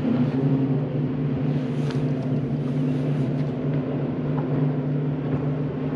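Bass boat's motor humming steadily at a constant low pitch.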